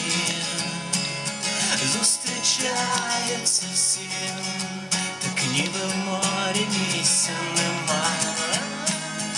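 A man singing while strumming an acoustic guitar, his voice wavering in pitch over the steady strums.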